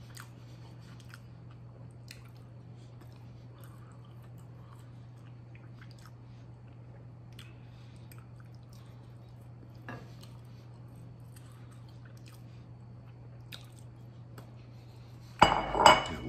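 Faint scrapes and small ticks against a ceramic bowl while it is tipped over a plate, over a steady low hum. Near the end, a loud clatter with a short ring as the ceramic bowl is set down on the table.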